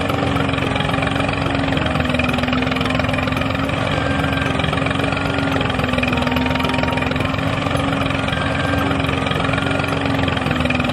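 Small electric motor and gearing of a DIY mini toy tractor running steadily with a constant hum as it pulls a disc harrow through sand.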